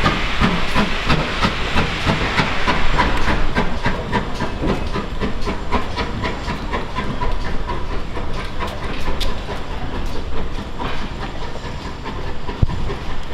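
Steam train running, with steam hissing and a quick run of clicks throughout; the hiss is strongest in the first few seconds.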